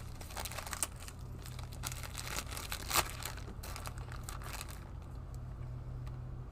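Plastic candy wrapper being crinkled and torn open by hand, a run of irregular crackles with one sharper rip about three seconds in, going quieter after about five seconds. A steady low hum sits underneath.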